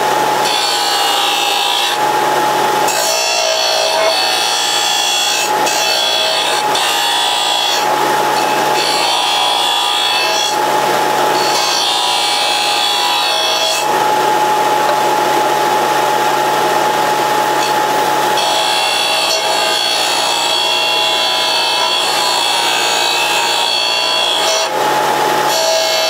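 Porter-Cable disc sander running with a steady whine while a steel bracket is ground against its abrasive disc to round its corners. The rasping hiss of the grinding swells and fades every few seconds as the piece is pressed on and eased off.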